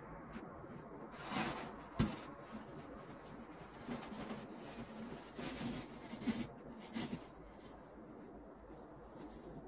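Faint crunching and scraping in snow from footsteps and a snow pusher being dragged, coming in short uneven bursts, with one sharp knock about two seconds in.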